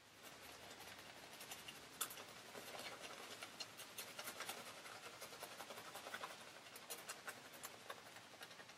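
Badger-hair shaving brush working shaving-cream lather over a stubbled face: a faint, continuous crackly scratching of bristles through the lather, with one sharper click about two seconds in.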